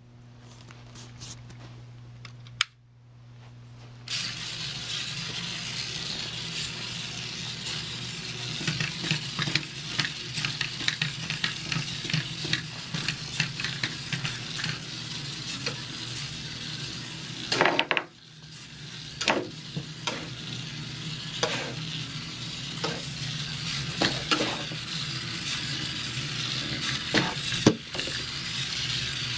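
Small three-wheeled autonomous spinning robot running on a tabletop. It starts with a steady low hum, and from about four seconds in its spinning wheels and servo steering make a continuous rattling whir with sharp clicks and knocks. The whir drops off briefly about eighteen seconds in, then picks up again.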